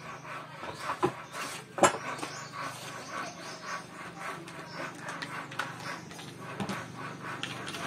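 Hand-handling noises of tools and sandpaper on a wooden beam: scattered light clicks, taps and rustles, with one sharp knock about two seconds in. A faint steady low hum runs underneath.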